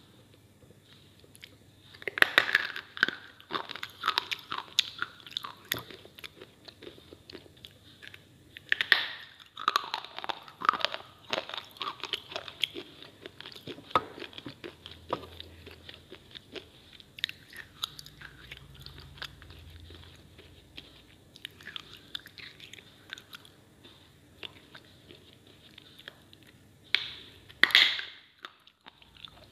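Crunchy biting and chewing of dry slate pieces (slate pencils, bars and triangles), with sharp cracking bites. The loudest bites come about two seconds in, around nine seconds, and near the end, with quieter crunching between them.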